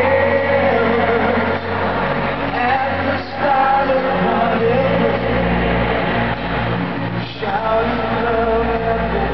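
Male pop vocal group singing a ballad live over full band backing, with long held notes and brief breaks between phrases, heard through a stadium PA from within the audience.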